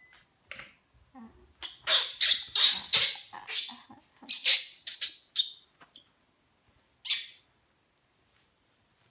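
A baby monkey gives about nine short, harsh cries in quick succession, then one more a couple of seconds later, while being handled into a diaper.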